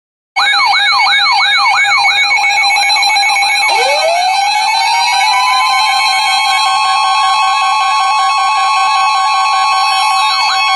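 Several electronic sirens and alarm tones sounding at once. One siren sweeps up and down rapidly, two to three times a second, over steady alarm tones. About three and a half seconds in, a second siren winds up from low to high pitch and then holds one steady tone.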